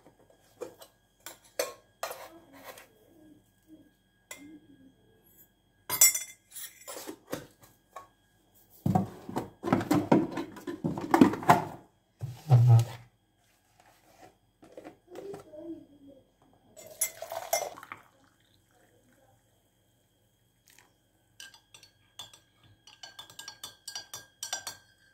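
Coffee-making at the kitchen counter: scattered clinks and knocks of a ceramic mug, tin and cutlery on the countertop, with one heavier thump about halfway through. Near the end a spoon clinks rapidly against the inside of the ceramic mug as it stirs the coffee.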